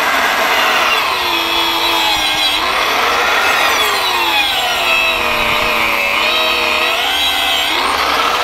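Angle grinder with a diamond disc running and rubbing against a car tyre's rubber tread. The motor whine drops in pitch as the disc bogs down under load and rises again near the end. The diamond disc barely cuts the rubber.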